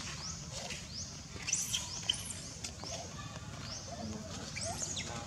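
Forest ambience: a high, short rising chirp repeats about twice a second over a steady low hum, with a few faint lower squeaks.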